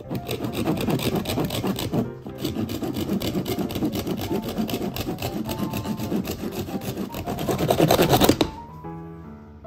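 Hand saw cutting through a coconut's hard shell in quick, even back-and-forth strokes, pausing briefly about two seconds in. It stops near the end once the shell is cut through.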